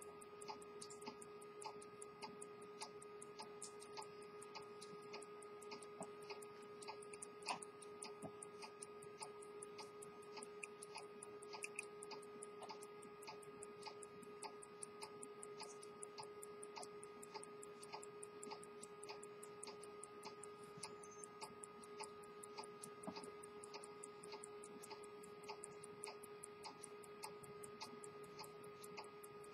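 Swiss quarter-repeater pocket watch ticking: a fast, even run of faint ticks, over a faint steady hum.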